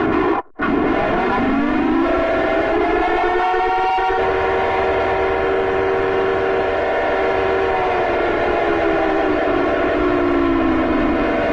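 Civil defense siren sounding an attack warning: several tones at once winding up to a steady wail, holding, then winding down near the end. A brief dropout about half a second in.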